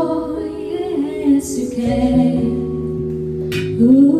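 A woman singing with long, held, wavering notes over an instrumental backing track.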